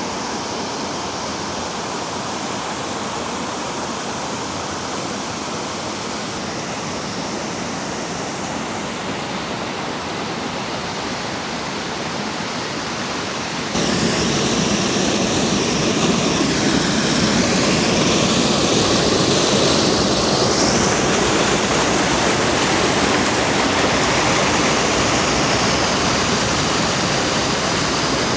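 Waterfall rushing, a steady loud wash of falling water that becomes abruptly louder about halfway through.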